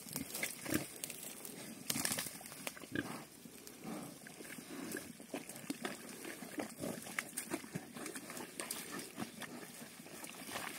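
Pigs grunting at irregular intervals, with scattered short clicks and knocks.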